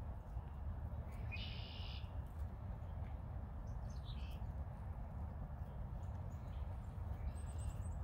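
A small songbird gives a few short calls: a buzzy call about a second and a half in, a brief one around four seconds, and a higher one near the end, over a steady low background rumble.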